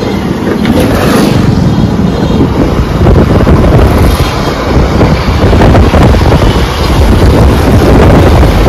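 Wind buffeting the microphone while riding through street traffic on an open vehicle, with vehicle and road noise underneath. Loud and steady throughout.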